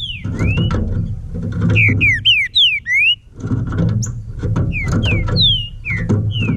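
Green-winged saltator (trinca-ferro) singing: a run of clear whistled notes, each sliding up or down, with a short break about three seconds in.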